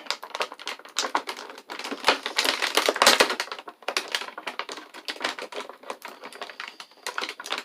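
Close crackling and clicking of plastic packaging and small plastic miniature parts being handled, a dense run of little clicks that is busiest about three seconds in.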